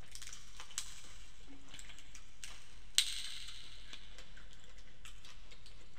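Scattered crackling clicks of a boiled prawn's shell being broken and peeled apart by hand, with one sharp crack about halfway through.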